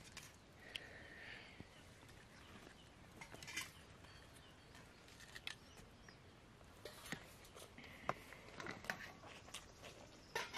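Faint eating sounds: food being handled and eaten, with scattered soft clicks and taps.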